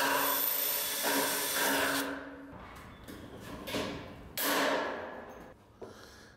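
Cordless drill boring through thin painted metal trim for about two seconds, then stopping. A few quieter clicks follow, then a sharp snap about four and a half seconds in as a hand rivet tool sets a pop rivet.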